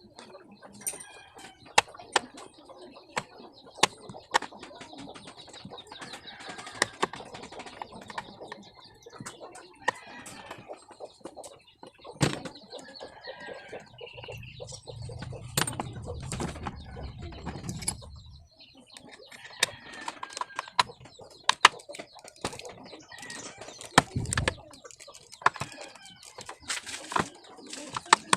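Repeated sharp clicks and knocks of the plastic air filter box being unscrewed and opened, with a low rumble in the middle. Birds, among them chickens, call now and then in the background.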